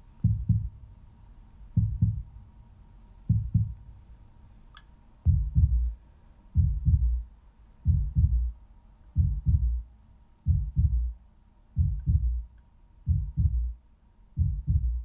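Slow heartbeat: deep double thumps, lub-dub, repeating about every second and a half, with one longer pause about four seconds in.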